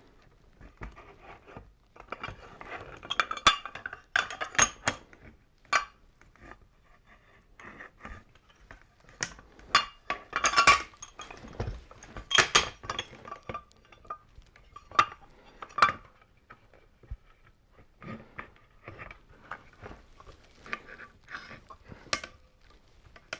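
Metal tools clinking and clattering against each other in an irregular run of sharp knocks and clinks, with a faint metallic ring, busiest about halfway through.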